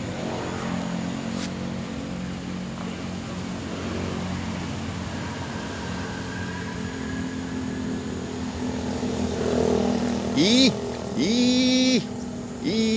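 Steady roadside traffic, passing motor vehicles with engines running. Near the end a vehicle horn sounds three times, each blast a flat, strong tone that swoops up at the start and down at the end, the last one the longest.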